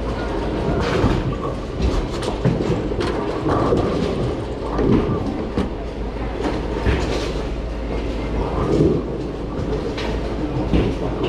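Bowling-alley din: a steady rumble of balls rolling on the lanes and through the ball return, with scattered knocks and clatters throughout.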